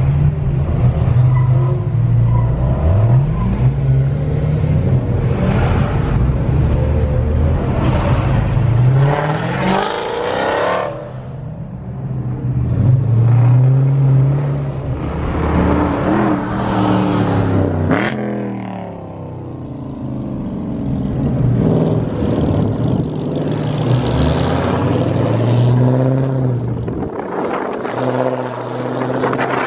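Car engines running loud and revving, with several rising revs as cars pull away or pass.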